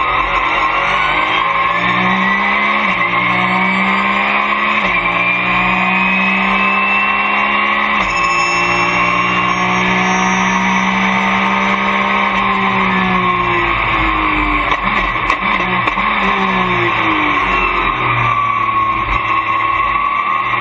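A Porsche race car's flat-six engine at full throttle, heard from inside the cockpit. It climbs in pitch and drops back at upshifts about three, five and eight seconds in, then falls away as the car slows and changes down, and climbs again near the end.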